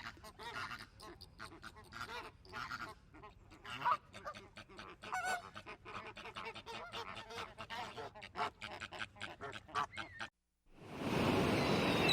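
A flock of waterfowl calling, many short honks and quacks overlapping. After a brief cut to silence near the end, a loud steady rushing noise takes over.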